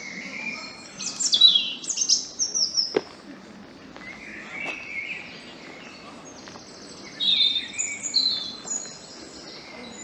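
Songbirds singing in woodland: two runs of high-pitched song, one about a second in with quick falling notes and another around seven seconds in. There is a single sharp click about three seconds in.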